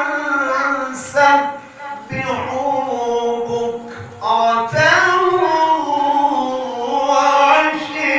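A male qari reciting the Qur'an in the melodic tilawah style, holding long ornamented notes at a high pitch. Each phrase is sustained and wavering, with short breaks for breath about 2 and 4.5 seconds in.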